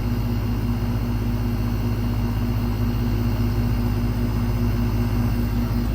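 A 2005 Ducane central air conditioner's outdoor condensing unit running: a steady, even hum from the compressor over a continuous rush of air.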